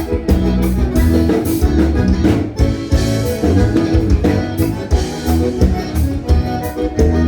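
Instrumental gaúcho dance music from a regional band, playing steadily with a regular beat.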